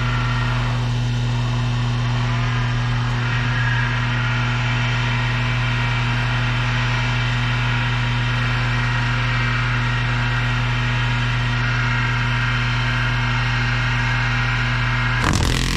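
Electric power-tool motor running steadily at speed with a strong, even hum, spinning a saw handle while an oil finish is applied; the sound shifts abruptly near the end.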